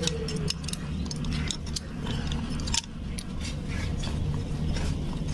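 Irregular light clicks and clinks of a stack of Honda Supra clutch friction plates knocking against each other as they are handled and oiled before fitting.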